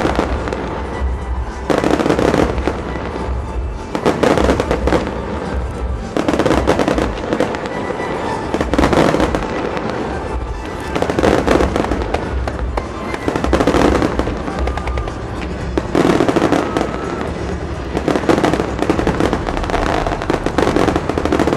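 Fireworks display: repeated loud surges of bursting shells and dense crackling, about every two seconds, with music playing underneath.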